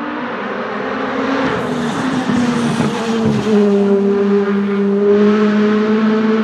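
Honda Civic WTCC race car's 1.6-litre turbocharged four-cylinder engine at full throttle as the car passes by. Its note grows louder, drops in pitch about three seconds in as it goes past, then holds a steady pitch as it pulls away.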